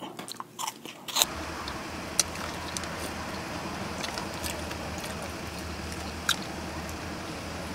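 A few sharp clicks, then from about a second in a steady low rumble inside a Jeep's cabin, with a faint click now and then.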